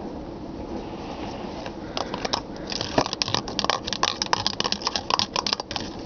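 A cat's toy ball clattering: a fast, irregular run of sharp clicks and rattles that starts about two seconds in and stops shortly before the end.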